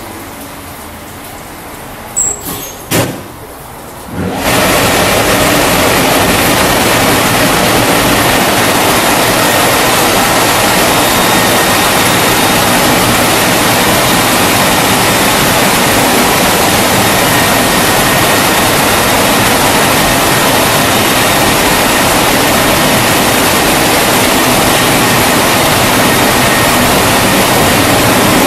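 Wesumat Softwash car-wash gantry: a couple of short knocks, then about four seconds in its drying blowers start up with a sudden, loud, steady rush of air that holds, with a faint thin whine in it.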